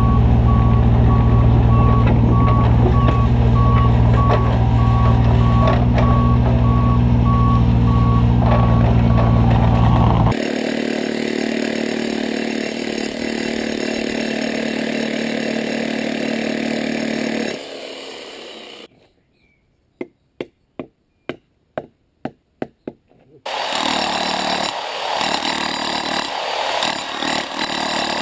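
Diesel earth-moving machines running with a reversing alarm beeping at an even pace, for about the first ten seconds. Then an electric demolition hammer breaking up the ground. After a short near-quiet gap with a few faint clicks, the hammer starts again in short stuttering bursts.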